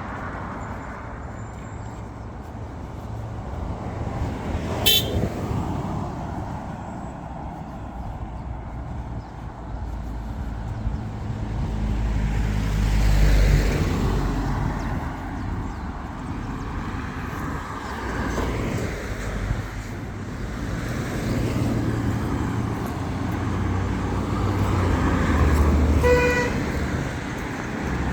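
Road traffic with engine rumble from vehicles passing, swelling and fading. A sharp click comes about five seconds in, and a short car horn toot near the end.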